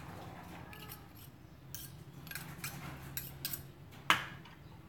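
Metal spoon scraping and tapping minced garlic out of a small food chopper's bowl into a glass bowl: a few light scattered clicks, with a sharper knock about four seconds in.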